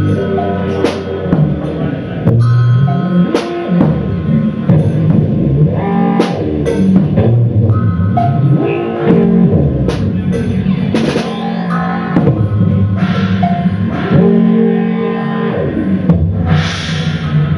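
Live band music: drum kit and guitar playing together, with frequent drum hits over sustained guitar notes and a bright crash-like wash near the end.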